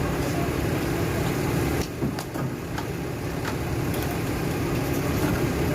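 Engine of a 10-ton forklift running steadily, with a couple of short knocks partway through.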